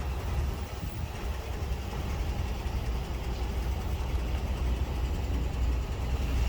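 Vehicle running with a steady low rumble.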